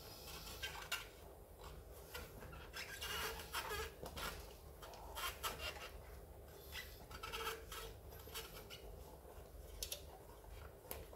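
Rubber scooter tyre being worked back onto its wheel rim by hand: irregular rubbing and scraping of rubber against the rim.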